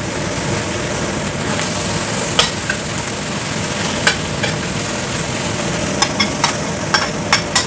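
Noodles sizzling in a hot frying pan while being stirred. Sharp spatula clicks against the pan come now and then, several in quick succession near the end.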